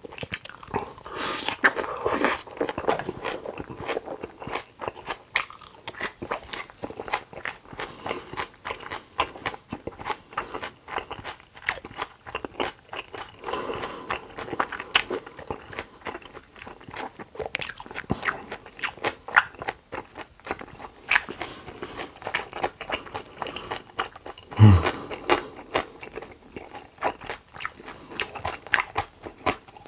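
Close-miked eating: continual biting, crunching and chewing of food, with wet clicks and crackles. A single louder low thump about three-quarters of the way through.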